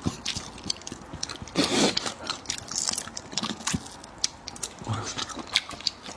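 Close-up eating sounds: a person biting and chewing seafood, with many small wet clicks and crackles and a few soft slurps.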